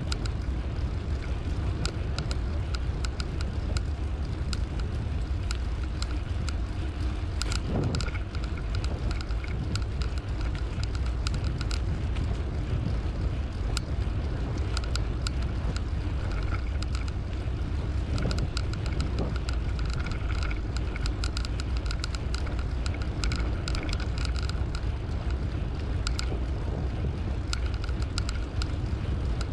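Bicycle ride heard from the rider: steady wind buffeting the microphone with tyre rolling noise, and scattered light clicks and rattles from the bike.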